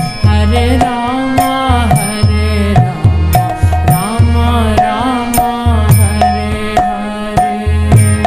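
Devotional Hindu bhajan music: a melodic line that bends in pitch over a steady tabla rhythm with deep drum strokes.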